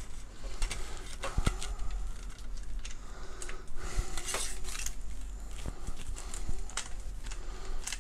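Scattered clicks and knocks from a ring-light tripod stand as its telescoping sections and locking knobs are loosened, pulled out and tightened, with a brief scraping hiss about four seconds in.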